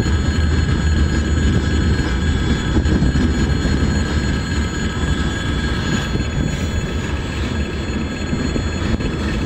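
Freight train wagons rolling past at a level crossing: a steady rumble of steel wheels on the rails, with a steady high-pitched ringing over it.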